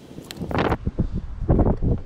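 Uneven rumbling and rustling of wind buffeting the microphone, in surges that are loudest about half a second in and again around a second and a half in.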